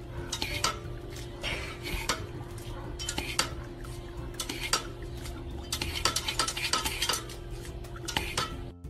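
Irregular clacks and clatter as a dog stamps on the plastic foot pedal of a step-on dog water fountain and noses at it, over a steady low hum.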